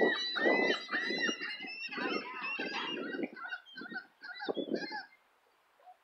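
A flock of gulls calling: many overlapping rising-and-falling cries, several a second, that die away about five seconds in.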